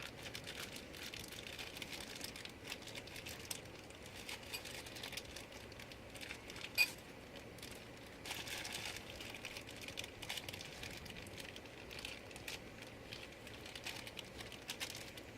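Faint handling noises of parts being fitted: small scattered clicks, taps and rattles, with one sharper click about seven seconds in.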